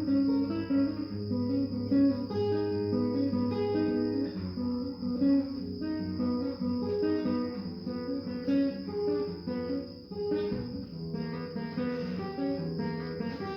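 Acoustic guitar played solo in Spanish style: a plucked melody of quick single notes over held low bass notes. A steady faint high-pitched drone runs behind it.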